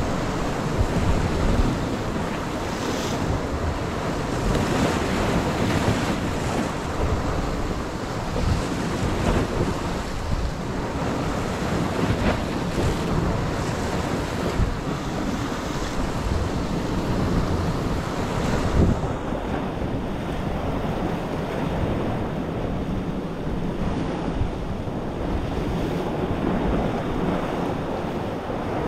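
Sea waves breaking and washing against rocky shoreline, with wind buffeting the microphone.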